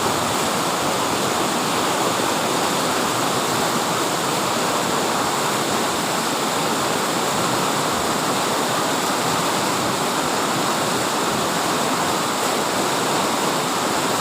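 Rushing water, a steady, even roar with no swells or breaks.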